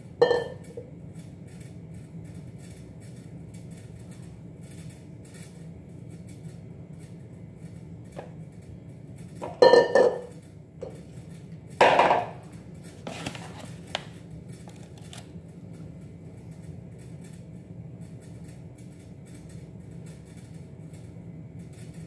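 A stainless steel mixing bowl clanking with a short metallic ring as it is set down and shifted on a granite countertop: once right at the start, then a few clanks about ten and twelve seconds in. A steady low hum runs underneath.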